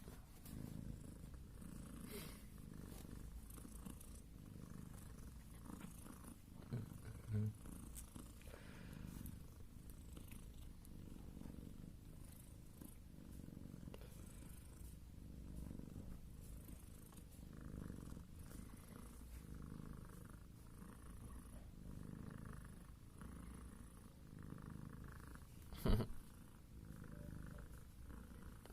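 Mother cat purring steadily in a slow, pulsing rhythm while nursing her newborn kittens. Near the end there is a single sharp knock.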